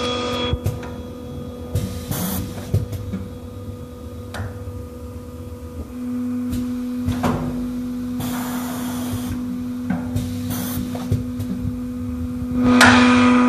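Semi-automatic pneumatic paper baking-mold forming machine working: a steady hum with short hisses of air and clicks and knocks from the press. The hum steps up about six seconds in, and the noise grows loud near the end.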